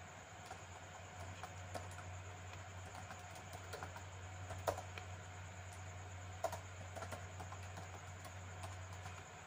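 Computer keyboard typing: faint, irregular keystrokes at a slow pace, with a couple of sharper key presses a little before the middle and about two-thirds of the way in, over a steady low hum.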